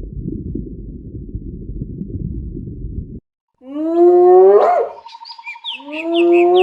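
A low rumbling sound for about three seconds, then two long pitched animal calls, each rising sharply at its end, with small birds chirping and trilling in between.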